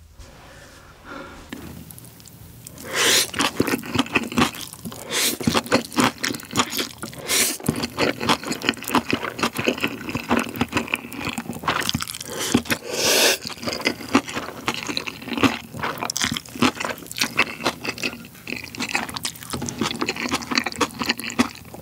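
Close-miked eating: Chapagetti black-bean instant noodles wrapped in spicy kimchi, slurped up in several loud pulls, with wet chewing and smacking between them.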